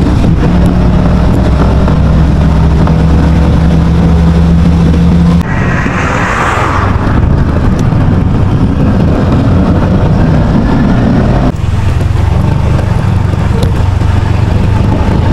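Small motorcycle engine running at a steady note while riding along a road. The sound changes abruptly about five and eleven seconds in, and there is a brief rushing hiss at about six seconds.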